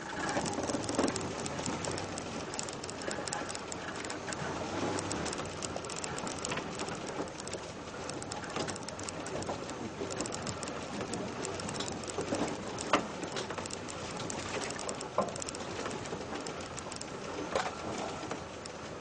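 Off-road 4x4 driving slowly over a rutted dirt track: a steady rumble of engine and tyres, with scattered sharp knocks and rattles from the vehicle as it goes over bumps. The loudest knock comes about two-thirds of the way in.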